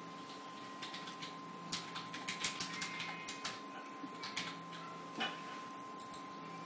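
Four NEMA-17-size stepper motors running at a steady speed from a USB CNC controller, giving a thin steady high whine over a low hum. Scattered irregular clicks sound over it.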